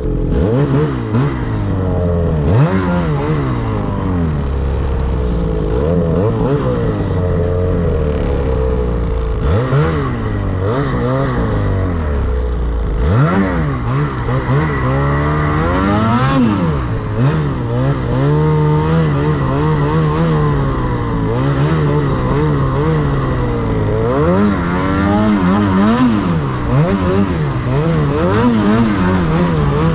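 Snowmobile engine revving hard, its pitch rising and falling over and over as the throttle is worked through deep powder snow.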